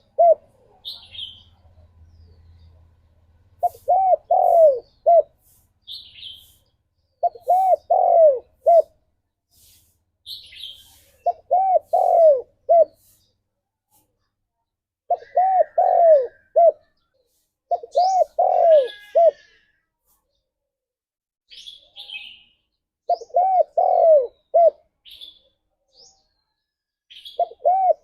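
Spotted dove cooing: a phrase of three or four rising-and-falling notes, the last one short, repeated about every four seconds, about seven times. Brief high chirps from small birds fall between the phrases.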